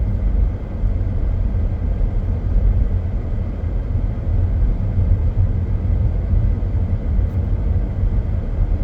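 Steady low rumble inside a moving car's cabin: road and engine noise as the car drives on.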